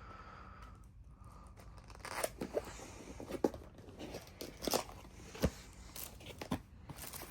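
Packaging being torn open and handled: crinkling and tearing with sharp clicks and snaps, starting about two seconds in.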